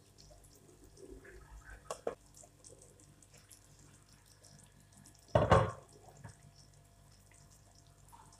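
A brief, loud knock about five and a half seconds in, with a couple of faint clicks about two seconds in, over a low steady hum.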